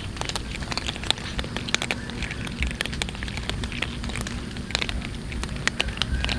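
A group of cats crunching dry kibble: a dense, irregular crackle of many overlapping crunches, over a low rumble.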